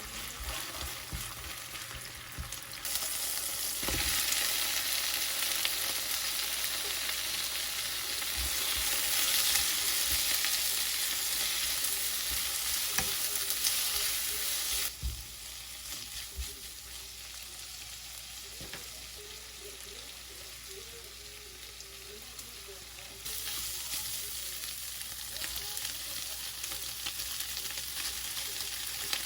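Food sizzling in a frying pan, with scattered knocks of a utensil stirring against the pan. The sizzle grows louder about 3 s in, drops back about 15 s in and rises again near the end.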